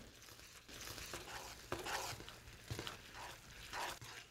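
Metal tongs tossing egg noodles through sauce in a nonstick skillet: faint wet stirring with a few light clicks.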